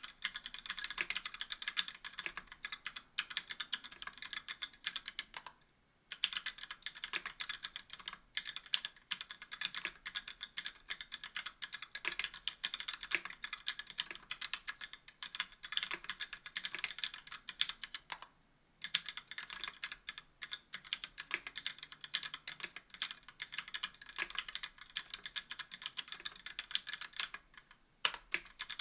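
Continuous typing on a KBDfans Tofu60 aluminum mechanical keyboard with stock Gateron Black linear switches on an aluminum plate and GMK keycaps: a dense, steady clatter of keystrokes. There are short pauses about six seconds in and again near nineteen seconds.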